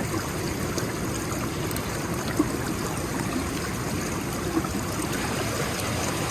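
River water running steadily over rocks, with one brief knock about two and a half seconds in.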